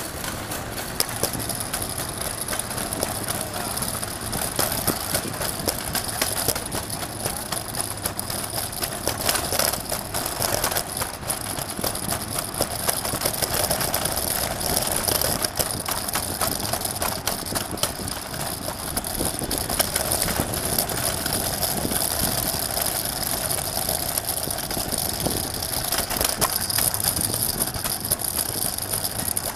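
City street noise: steady traffic and engine noise with frequent small clicks and rattles.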